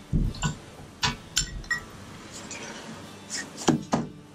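Seal puller prying the old inboard oil seal out of a steering knuckle's bore: short metal clinks and knocks, a few in the first half-second, more about a second in, and another cluster shortly before the seal comes free.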